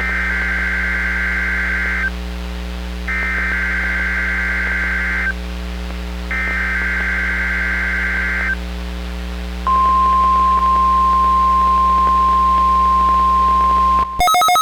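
Emergency Alert System (EAS) Required Weekly Test on NOAA Weather Radio: three bursts of the SAME digital header, each a buzzy data screech about two seconds long with a short gap between them, then the steady 1050 Hz warning alarm tone for about four seconds. Just before the end the tone cuts off and a rapidly pulsing, ringing alert sound begins. A steady mains hum runs underneath.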